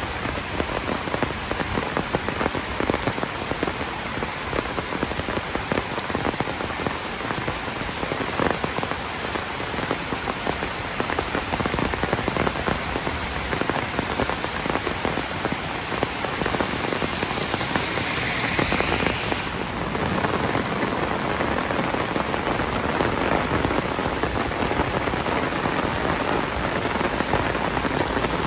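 Heavy rain falling steadily, a dense hiss of countless drops, growing a little louder a bit past the middle.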